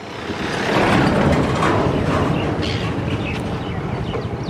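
A Mahindra Bolero pickup truck passing close by, its engine and tyres on the paved lane. The sound is loudest about a second in, then slowly fades as it goes away.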